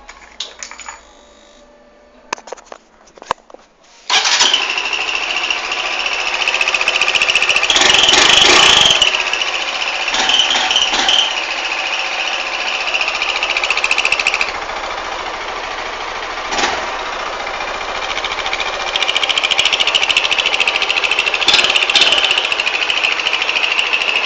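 A motorcycle engine starts about four seconds in and is revved, its exhaust carrying a high, steady whistle from a whistle insert fitted in the stock muffler's outlet. The whistle fades for a few seconds midway while the engine idles, then comes back with further revving before the engine is shut off near the end.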